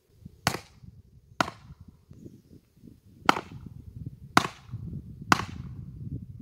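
Five sharp knocks of a tool striking wood at uneven intervals during fence repair work, over a low background rumble.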